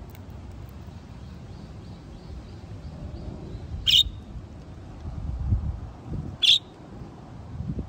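Two short, sharp bird chirps about two and a half seconds apart, over wind rumbling on the microphone.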